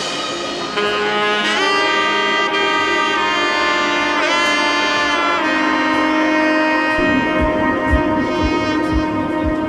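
Background music: a sustained melody line with bending notes over held chords, with a steady beat coming in about seven seconds in.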